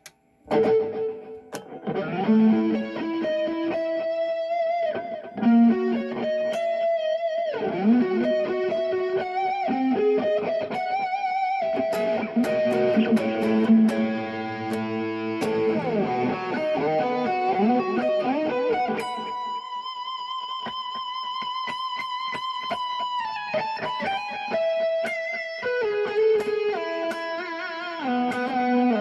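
Electric guitar played through a Kemper Player amp profiler: a melodic lead line with bends and vibrato, including a long note held with wide vibrato about two-thirds of the way through.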